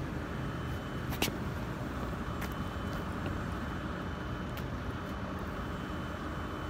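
Steady low rumble of road traffic, with one sharp click about a second in.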